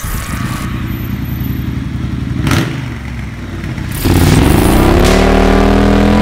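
Triumph Street Scrambler 900's parallel-twin engine through a stainless-steel slip-on exhaust. A low rumble gives way, about four seconds in, to a sudden loud rev that rises steeply in pitch and then holds high and steady as the bike accelerates away.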